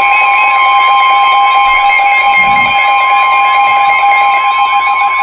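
NOAA Weather Radio warning alert tone played through a Midland WR-100 weather radio: a loud, long, steady alarm tone near 1 kHz with a second, lower tone, sounding without a break. It announces an incoming severe thunderstorm warning.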